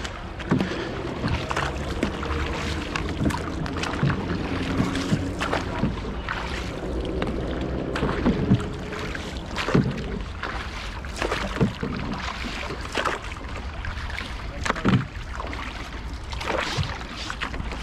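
Canoe paddles dipping and splashing, with irregular knocks of paddle shafts against the canoe, over a steady low rumble of wind on the microphone.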